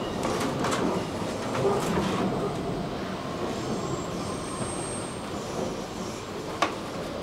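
Stockholm metro train heard from inside the car, running at speed: a steady rumble of wheels on rails with a few sharp clicks over rail joints, a thin high wheel squeal about four to five seconds in, and one sharp click near the end.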